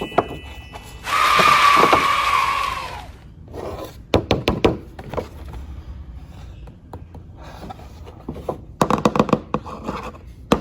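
An electronic baby learning toy plays a brief noisy sound effect from its small speaker for about two seconds, then its plastic buttons click and knock as they are pressed, in clusters around the middle and near the end.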